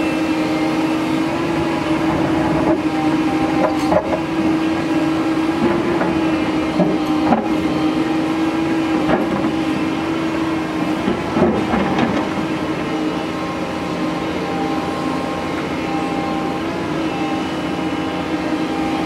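Doosan DX225LCA crawler excavator's diesel engine running steadily under load, with several scattered knocks and scrapes, most of them in the first two thirds, as the bucket digs into rocky soil.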